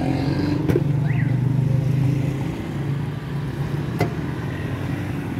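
A motor vehicle engine running steadily nearby, louder in the first couple of seconds, with two sharp clicks, one under a second in and one about four seconds in.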